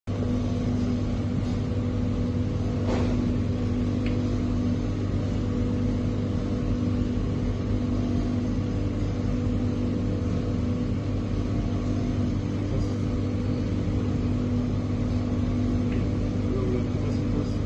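Steady mechanical hum of running kitchen machinery, a constant low drone with a steady mid-pitched tone on top, with a faint click about three seconds in.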